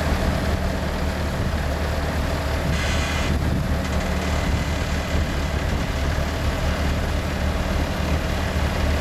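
Bobcat 753 skid-steer loader's engine idling steadily with a low hum, with a brief hiss about three seconds in.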